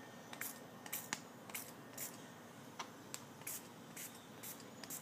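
Tape being peeled off a freshly glued subwoofer dust cap: a string of short, sharp crackles at an irregular pace.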